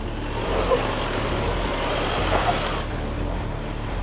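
Isuzu D-Max's diesel engine running at low revs as the ute crawls down a deep dirt rut. A rougher noise from the tyres or body swells over the middle couple of seconds.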